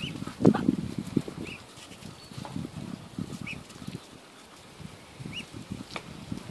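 Young ducks giving about four short, high peeps a second or two apart, over low rustling and scuffing of feet on dry ground. A loud knock comes about half a second in.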